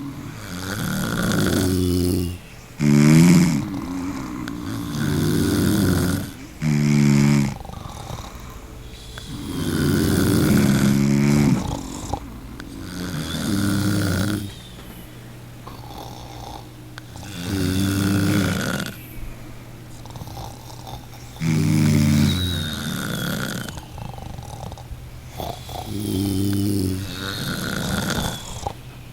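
A person snoring loudly and irregularly, with a rattling snore every few seconds and quieter breathing between. Some snores are short, others drawn out for a couple of seconds.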